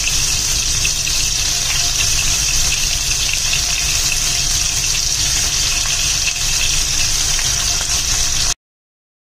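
Marinated prawns sizzling as they shallow-fry in hot coconut oil in a nonstick pan: a steady frying hiss with fine crackles. It cuts off abruptly near the end.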